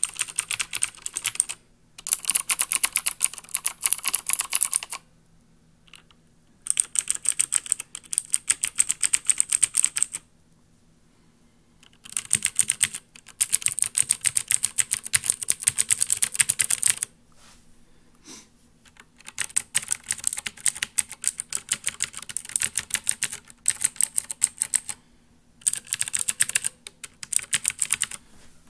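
Mechanical keyboards typed on in turn: clicky Cherry MX Blue and Green switches and the buckling springs of an IBM Model M. Rapid, clattering keystrokes come in about six bursts with short pauses between them.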